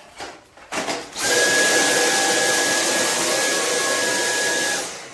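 Dyson cordless stick vacuum switched on about a second in, running at maximum suction with a steady high whine over loud rushing air as it picks up cat litter. It winds down near the end.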